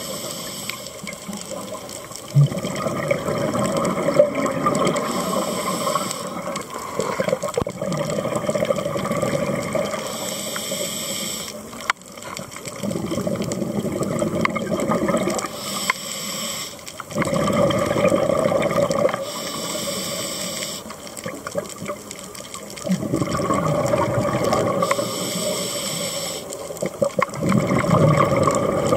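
Scuba diver breathing through a regulator underwater: short hissing inhalations alternate with longer stretches of bubbling exhaled air, about four breaths in all.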